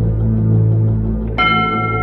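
Title theme music: a low sustained drone, with a bell-like chime struck about one and a half seconds in that keeps ringing.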